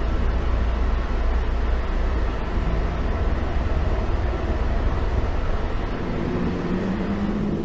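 Steady low rumbling noise with a hiss over it. About six seconds in the rumble thins and a low hum comes in.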